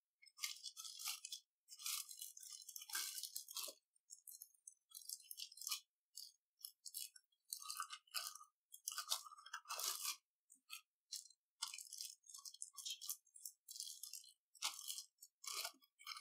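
Clear zip-lock plastic bag crinkling and rustling in irregular bursts as a plant pot is worked into it by hand.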